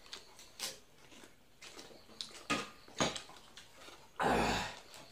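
Drinking glasses and plates knocking on a table with a few short clinks, then a louder half-second rush of noise near the end.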